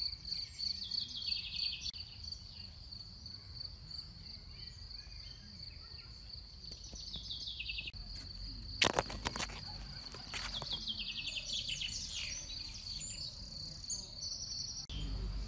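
Grassland insects, such as crickets, chirring in a steady high pulsing drone. Short runs of bird chirps come about one second in, about seven seconds in, and again from about eleven to thirteen seconds. A few sharp clicks come around nine seconds in.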